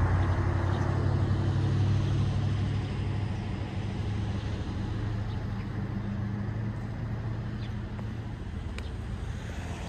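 Road traffic: a motor vehicle's engine, a low steady hum that slowly fades away.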